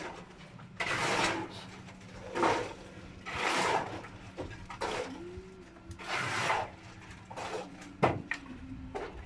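Rough scraping strokes of wood being rubbed or rasped, about one every second or so, with a single sharp knock about eight seconds in.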